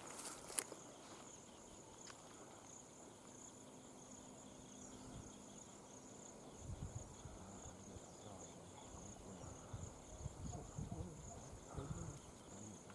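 Insects chirring steadily at a high pitch, faint. Scattered soft low rustles and thumps come in over the second half.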